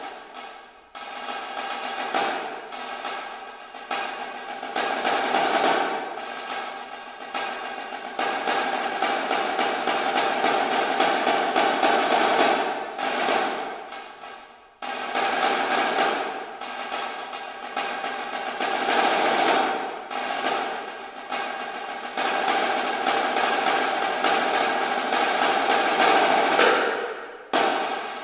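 Solo snare drum played with sticks: long rolls and fast rudimental sticking that swell into loud crescendos, breaking off sharply about halfway through and again near the end.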